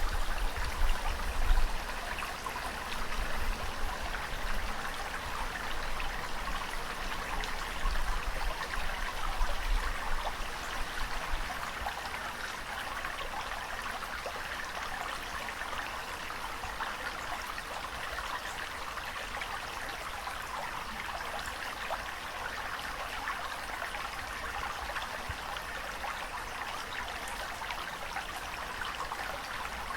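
Continuous rushing, splashing water. Uneven low rumbling surges come in the first ten seconds or so, then it settles to a steady, even wash.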